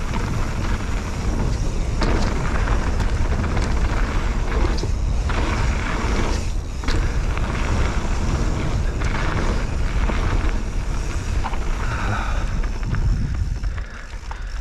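Mountain bike descending a rough, rocky trail: wind rushing over a helmet or chest-mounted GoPro, tyres on stone, and many knocks and rattles from the bike. It quietens near the end as the bike slows.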